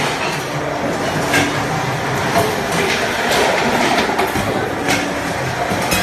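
Automatic can-making line for steel pails running: a steady machinery din of conveyor and press with irregular metallic knocks and clanks.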